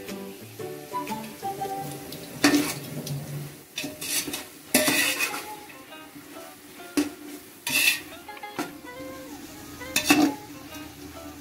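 A ladle stirring onion-tomato masala frying in a pot, with about half a dozen loud scrapes and knocks against the pot spread a second or two apart over the sizzle.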